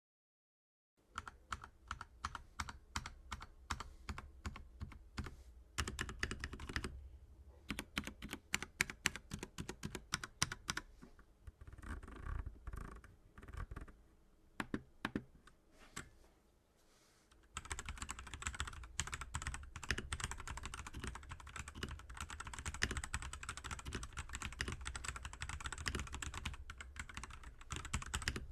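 Redragon Ucal Pro mechanical keyboard with unlubricated stock red linear switches being typed on: separate key presses at first, then fast, continuous typing from about two-thirds of the way in.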